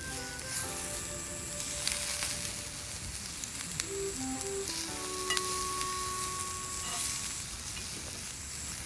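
Steady sizzling of fish cooking over a campfire, with scattered sharp crackles, under soft background music.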